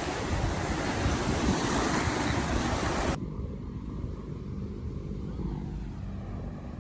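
Ocean surf washing over the rocks with wind buffeting the microphone, a steady full-range rush; about three seconds in it cuts off suddenly to a quieter, duller rumble of wind and water.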